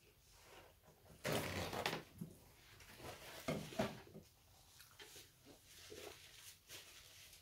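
Eating-show mouth and table sounds: a brief rushing noise a little over a second in, sharp knocks a couple of seconds later as a plastic water bottle is picked up, then soft sips through its straw.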